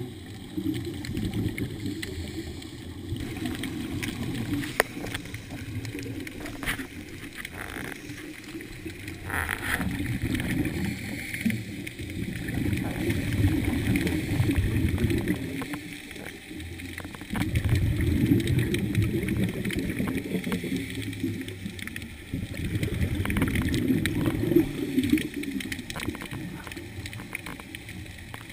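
Scuba regulator exhaust bubbles gurgling and rumbling underwater in long surges every four to five seconds, one surge per exhaled breath of the diver.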